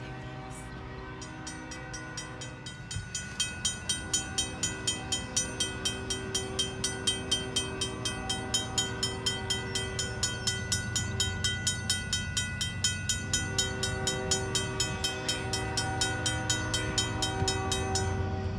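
Railroad grade-crossing warning bell ringing in even strikes, about three a second, stopping near the end as the crossing gates rise.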